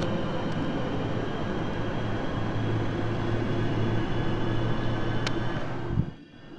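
Loud, steady, low droning hum over a rumbling noise, the unexplained 'strange sound from the sky' that the recorder suspects comes from overhead. About six seconds in, a brief thump, and then it drops abruptly to a much quieter hum.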